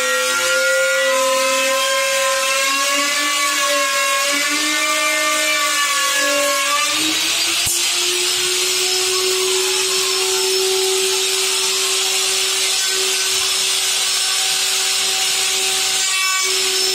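Handheld corded power tool cutting along the edge of a Corian solid-surface countertop: a motor whine over the hiss of the cut. The pitch wavers under load for the first several seconds, then drops and holds steady and lower, with a single sharp click just before the change settles.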